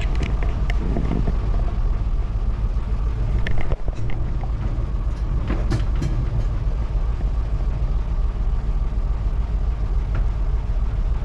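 A river boat's inboard engine running with a steady low rumble, with a few sharp knocks, one about three and a half seconds in and one near six seconds.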